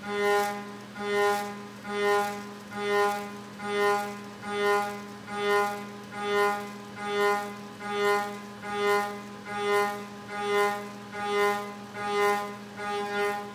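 CNC mill's direct-drive spindle turning a 5/8-inch end mill at about 12,200 rpm while rough-milling aluminum. A steady spindle hum runs under a singing cutting tone that swells and fades regularly, a little more than once a second, as the tool's engagement with the metal cycles.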